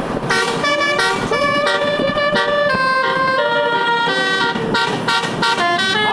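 Multi-tone 'telolet' bus horn with all its tones switched on, playing a continuous melody of chords whose notes change in quick steps, with a couple of sliding siren-like notes.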